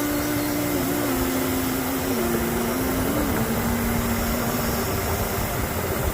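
Background pop music in a pause between sung lines: a slow melody of long held notes stepping up and down, over a loud, steady, even rushing noise.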